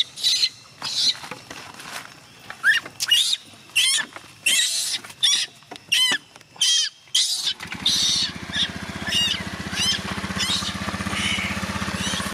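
A baby macaque crying in short, high-pitched screams, about two a second. About halfway through, a motor scooter's engine starts and idles steadily under the cries.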